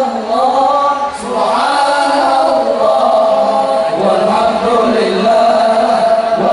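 Voices chanting together, holding long notes that waver and bend in pitch.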